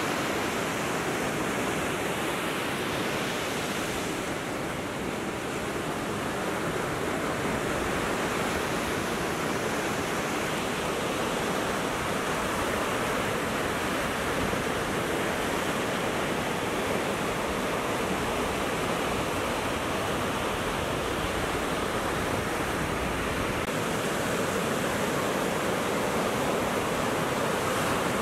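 Ocean surf: waves breaking and washing up the beach in a steady, unbroken rush.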